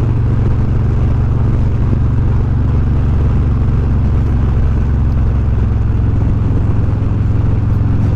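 Harley-Davidson Road Glide Special's Milwaukee-Eight V-twin running steadily while the motorcycle cruises.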